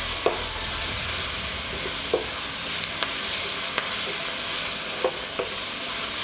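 Chopped moringa leaves, onions and garlic sizzling in ghee in a nonstick wok while a wooden spatula stirs them, with a steady frying hiss and a handful of short knocks and scrapes of the spatula against the pan.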